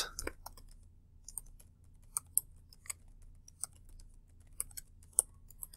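Typing on a computer keyboard: faint, irregular keystroke clicks with short pauses between bursts.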